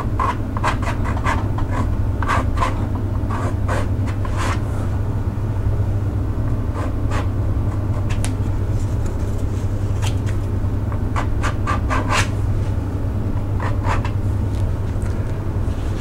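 Short scrapes of the edge of a thin, flimsy card dragged through damp watercolor paint on paper, coming in scattered little groups, lifting paint to make light rock textures. A steady low hum runs underneath.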